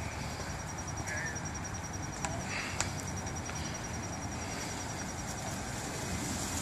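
Outdoor ambience: a steady low rumble under an insect's high, fast-pulsing trill, with a couple of faint short chirps.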